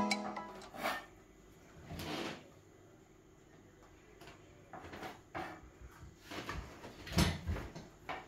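Kitchen knife tapping against a wooden cutting board while chicken liver is sliced: a few short, irregular knocks, the loudest about seven seconds in.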